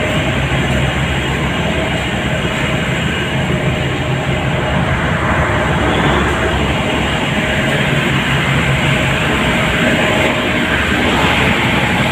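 Ship's diesel engines running, a steady loud drone with a low hum, growing a little louder in the second half.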